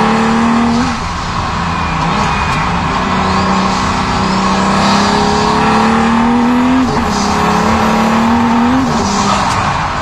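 Pagani Huayra Codalunga's twin-turbo V12 heard onboard, pulling hard up the course with its pitch climbing slowly and dropping sharply at gear changes about a second in, near seven seconds and near nine seconds.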